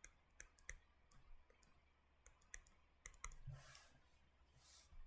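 Faint, scattered clicks and taps of a pen while someone writes, with a soft scratchy stroke about three seconds in.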